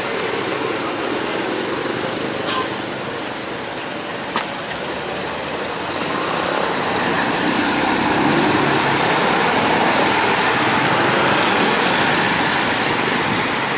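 Busy street traffic: motor scooters and a large tour coach running through an intersection, the engine and road noise swelling about halfway through as they pass close. Two brief clicks sound in the first few seconds.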